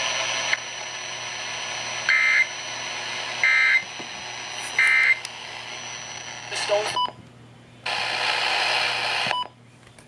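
Weather alert radio relaying an Emergency Alert System end-of-message code over the FM broadcast hiss: three short, identical screeching data bursts, a little over a second apart. Later come a few button-press beeps, with the hiss cutting out and coming back.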